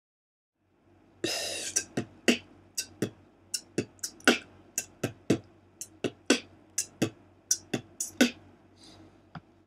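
Beatboxer performing the slow version of a beat: a hissing sound about a second in, then a steady pattern of sharp mouth-made drum hits at about four a second, stopping just before the end.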